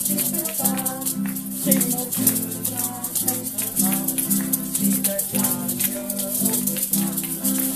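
Music with sustained plucked-string-like chords and a melody, and hand-held shakers rattling along in a busy rhythm.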